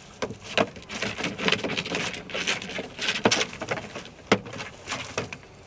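Irregular scuffling and rustling from a live pheasant being handled, with sharp knocks, the loudest two about three and four seconds in.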